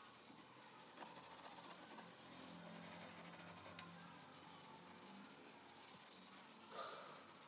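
Faint rubbing of a sponge wiping the stainless-steel front panel of a water purifier, with one brief louder swipe near the end.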